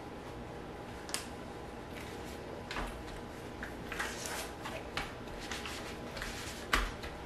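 Reusable plastic food bag being pressed shut and flattened to squeeze the air out: plastic crinkling with a handful of short, sharp crackles.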